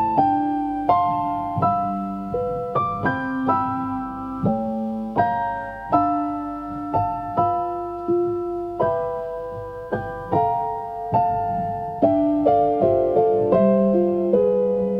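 Soft lofi jazz music: an electric piano playing slow chords and melody notes, each struck note ringing and fading before the next.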